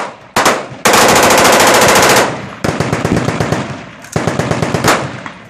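Automatic rifle fire: a single shot, then a long full-auto burst of about a second and a half. Further rapid shots follow and fade, and a second burst comes about four seconds in.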